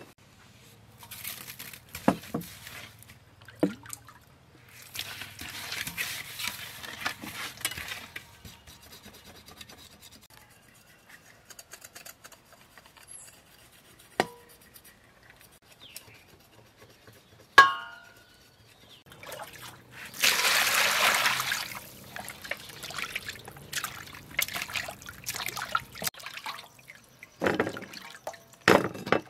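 Raw fish being washed by hand in a stainless steel bowl of water: irregular splashing and sloshing in several spells, loudest a little past two-thirds of the way through. A few sharp knocks in between, one a little past halfway with a short ring.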